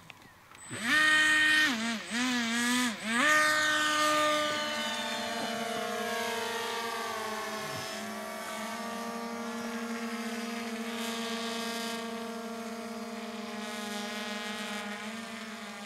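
Electric motor and propeller of a radio-controlled model, revved up and down in short bursts for the first few seconds, then held at a steady high whine.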